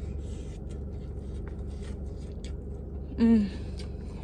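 Quiet eating sounds, faint clicks of chewing and utensils, over a steady low hum, with a short voiced murmur just over three seconds in.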